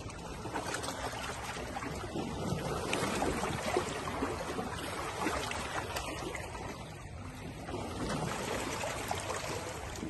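Small waves on a freshwater lake lapping and trickling, swelling and easing in gentle surges.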